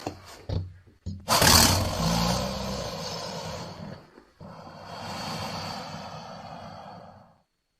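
Mixed monster roar sound effect for the giant crab monster Crustaceous Rex, layered from other creature sounds. A few short sharp bursts open it, then a long roar, loudest at its start and fading, then a second quieter roar that cuts off near the end.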